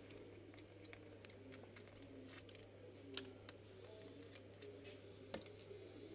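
Faint, irregular clicks and ticks of a screwdriver working the screws of a Dell Latitude E6420 laptop's heat sink, with a somewhat louder click about three seconds in and another near the end, over a low steady hum.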